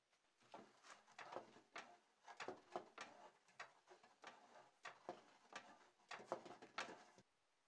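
Wooden piston box bellows being handled: a run of soft, uneven wooden clicks and light knocks, about two or three a second, that stops shortly before the end.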